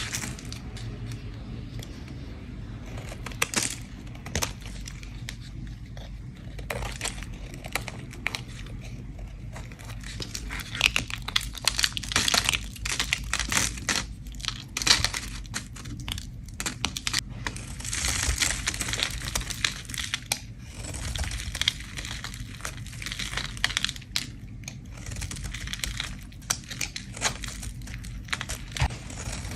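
A bar of soap being scraped in many short, repeated strokes, each a dry, crackling scrape, coming faster and louder around the middle of the clip.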